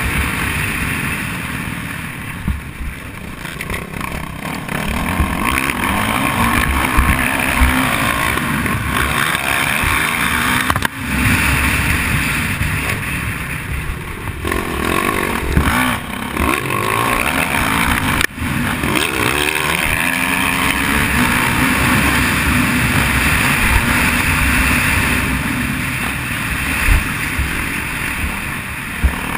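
Dirt bike engine running hard on a motocross track, the revs rising and falling with the throttle, with a couple of brief sharp drops in sound as the throttle is cut or a gear is changed.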